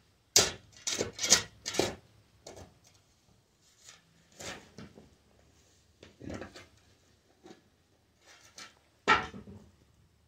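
Steel shovel blade scraping and digging into gravelly dirt in short, separate strokes. Four quick loud scrapes come in the first two seconds and fainter ones follow, with a louder scrape or knock about nine seconds in.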